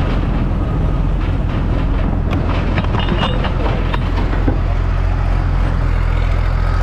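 Pulling vehicle's engine running steadily at idle, a loud low hum, with clicks and knocks from about two to four and a half seconds in as a hand grabs and handles the camera.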